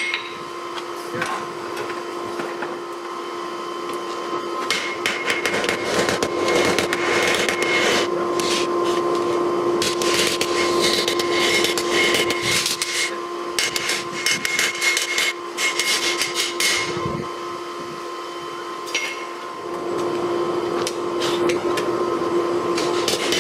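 Hand hammer striking hot steel from a lawnmower blade on a chain-wrapped anvil, in quick runs of blows with short pauses, over a steady hum.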